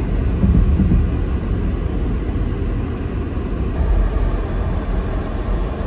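Loud, uneven low rumbling noise.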